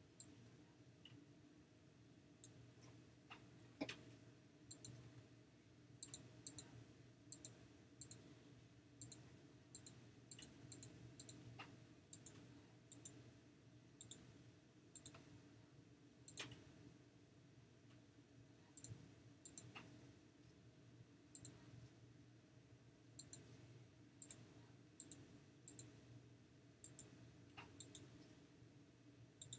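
Faint computer mouse clicks at an irregular pace, many coming in quick pairs, over a low steady hum.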